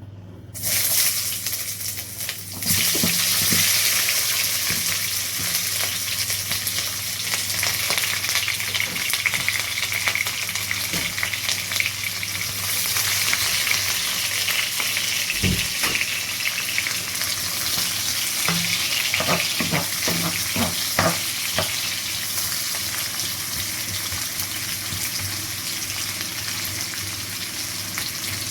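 Chopped red onions, ginger and garlic sizzling as they fry in hot olive and avocado oil in a pot. The sizzle starts about half a second in and grows louder near three seconds in, with a few knocks as the mixture is stirred.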